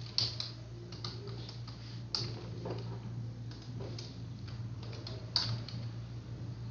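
Typing on a computer keyboard: irregular key clicks with a few louder strokes, over a steady low hum.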